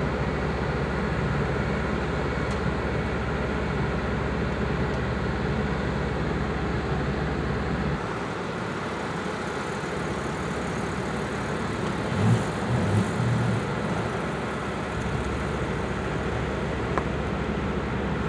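Bitelli BB650 asphalt paver's diesel engine running steadily. About eight seconds in the low drone drops, and a few seconds later come several short, louder low pulses.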